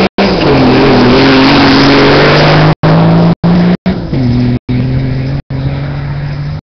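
Off-road rally 4x4 accelerating hard away from the start on a dirt track. The engine climbs to high revs close by, then shifts gear about four seconds in and fades as the car pulls away. The sound cuts out in short gaps several times.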